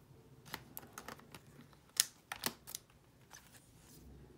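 Trading cards being handled and set down, making a series of light, irregular clicks and taps, the sharpest a few in quick succession about two seconds in.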